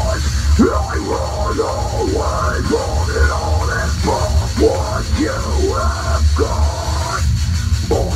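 Heavy rock music without vocals: electric guitar notes that bend and slide over a steady, heavy low bass.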